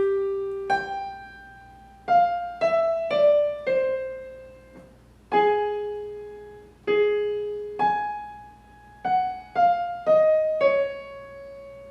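Piano accompaniment playing the warm-up pattern alone: a low note, a note an octave above, then a run stepping down five notes, played twice with each note fading away.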